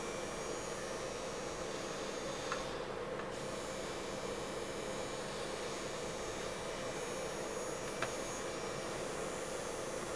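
Direct-drive rotary tattoo machine with a cartridge needle running steadily: an even motor whir and hum, with a faint click about two and a half seconds in and another near the end.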